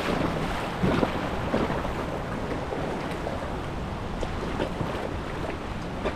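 Water lapping against a raft on a calm river, with small splashes now and then and wind on the microphone.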